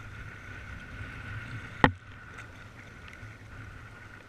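Kayak in rough surf: steady wind and water noise, with a single sharp impact about two seconds in.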